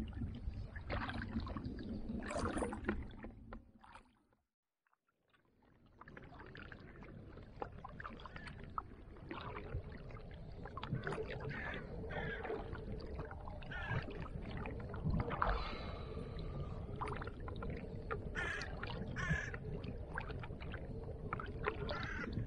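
Kayak paddle strokes dipping and splashing in lake water, with water lapping and wind on the microphone. The sound cuts out for a moment about four seconds in, then the paddling carries on steadily.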